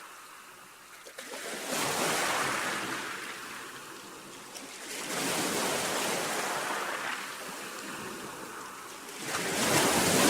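Sea waves breaking and washing in, the hiss swelling and ebbing in three surges about every four seconds, the last the loudest.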